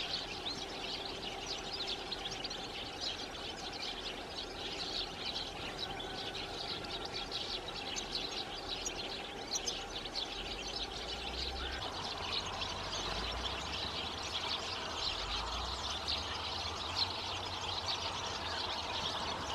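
European goldfinches twittering: a continuous chatter of many short, high calls.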